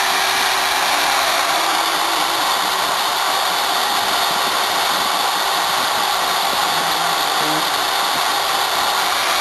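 Router spindle on a homemade CNC machine running steadily while flattening off a workpiece: a loud, even hiss with a faint constant hum, unbroken throughout.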